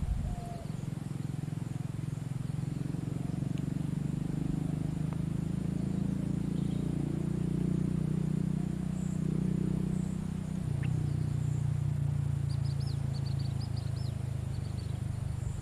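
Outdoor pond-side ambience: a steady low rumble throughout, with a small bird giving a quick series of high chirps about twelve seconds in.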